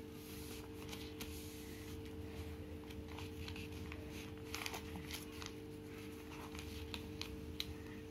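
A sheet of paper being folded accordion-style and creased by hand, with rustling and short crackles that come thicker in the second half, over a steady low hum.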